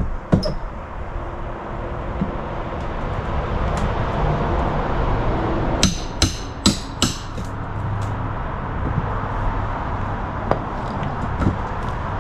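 Hammer blows in siding and framing carpentry: a single strike near the start, then a quick run of four blows about six seconds in, and a few lighter knocks later, over a steady background noise.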